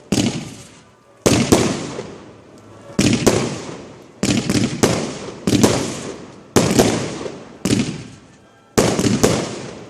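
Fireworks display heard from the firing area: sharp bangs in quick pairs and triples, a group about every second, each ringing out in a long echo.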